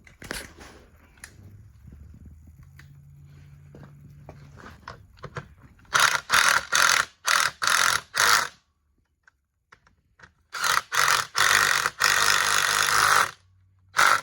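Socket ratchet wrench on the exhaust mounting bolts: faint small clicks at first, then loud bursts of ratcheting, a stroke every half second or so, with a longer run of continuous ratcheting near the end.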